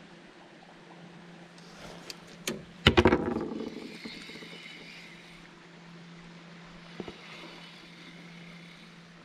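Small outboard motor running with a steady low hum. A cluster of loud knocks and rattles from the fishing rod and reel being handled comes about three seconds in.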